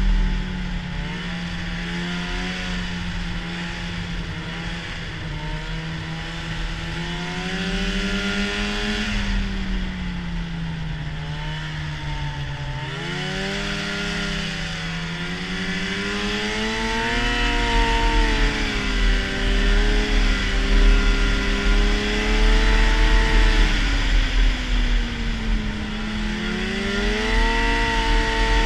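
Arctic Cat snowmobile engine running at speed, its pitch sagging and climbing again as the throttle is eased and reopened, with two deeper dips. A steady rush of wind runs underneath.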